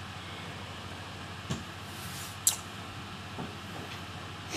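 Steady low room hum with a few small clicks and taps of handling a laptop's opened case and parts, the sharpest about two and a half seconds in.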